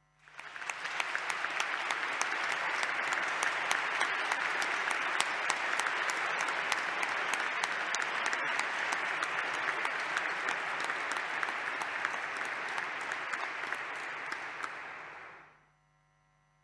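An audience applauding: sustained clapping that starts suddenly, holds steady for about fifteen seconds and dies away near the end.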